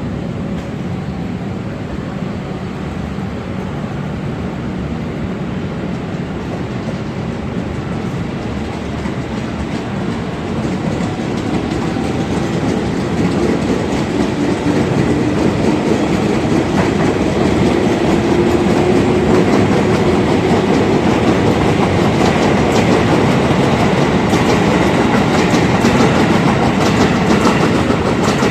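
KRL Commuter Line electric commuter train running on the rails, wheels clattering over the rail joints, growing louder from about a third of the way in and then staying loud. A faint rising whine runs through the middle.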